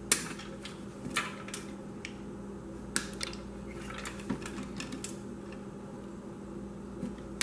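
Cutters snipping nylon zip ties on a toaster's wiring harness: a handful of sharp, separate snaps spread over several seconds, over a steady low hum.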